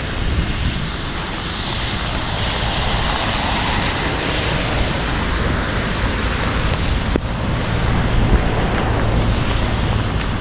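Steady loud rush of floodwater pouring past, with wind buffeting the microphone as a low rumble.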